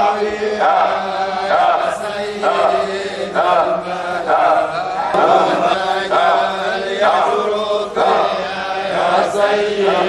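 Men's voices chanting an Islamic devotional refrain in Arabic together, in phrases that rise and fall every second or so.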